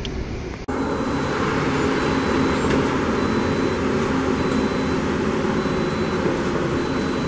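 Steady running vehicle noise: a low engine hum under an even rushing hiss, which starts abruptly under a second in and holds unchanged.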